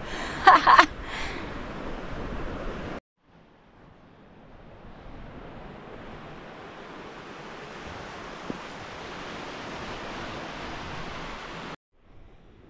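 A brief high whoop from a woman at the start, then a steady rush of wind on the microphone mixed with sea surf. The sound drops out briefly about three seconds in and again near the end.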